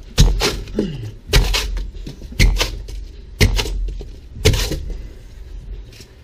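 Hammer blows breaking out the foam packed under a fibreglass boat's dash: five sharp knocks about a second apart, some of them doubled.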